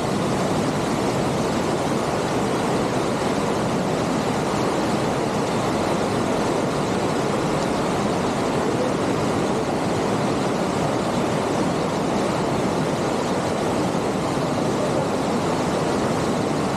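A rushing mountain creek: whitewater tumbling over rocks and logs in a steady, unbroken rush.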